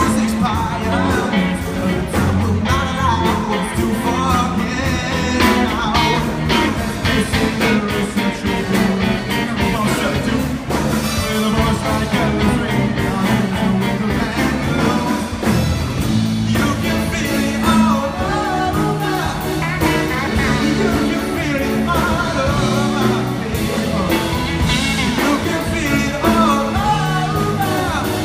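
Live rock band playing a song with a lead singer: electric guitars, bass, keyboard and drum kit, amplified through the stage PA.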